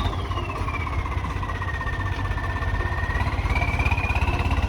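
Turbocharged Swaraj 855 tractor diesel engine running, its turbo whistling over the engine's low throb. The whistle falls steadily in pitch as the revs drop, rises a little after about three seconds, then falls again near the end.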